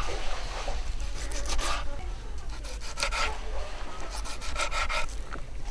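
Kitchen knife chopping raw peacock bass (tucunaré) fillet into small pieces on a wooden cutting board: quick runs of knife strokes against the board, with short pauses between them.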